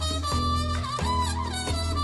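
Background music: an upbeat mambo-style tune with horns carrying the melody over a steady bass.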